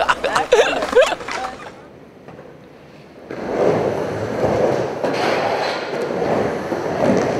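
Skateboard wheels rolling on a large vert ramp: a steady rumble that starts about three seconds in as the skater rides across the flat bottom and up the wall.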